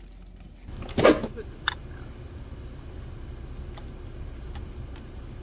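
Steady low rumble of a car heard from inside the cabin, with a loud thump about a second in and a sharp click shortly after.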